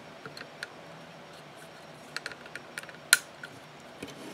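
Light clicks and taps of a plastic Raspberry Pi case being handled and turned over in the hands, with a cluster of small clicks and one sharper click about three seconds in.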